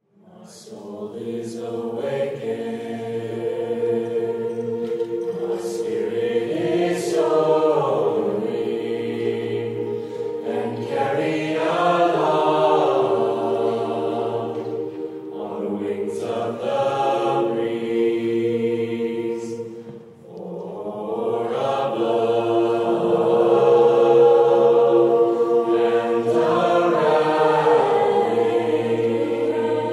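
Mixed choir singing a cappella in slow, sustained chords: the lower voices sing the words "My soul is awakened, my spirit is soaring" while the upper voices hum beneath them. The sound dips briefly about twenty seconds in, at a breath between phrases, then swells again.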